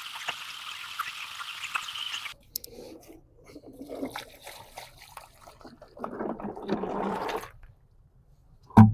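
Water rushing and splashing while black walnuts are washed of their husk pulp. A steady rush cuts off abruptly about two seconds in, followed by patchier sloshing and trickling.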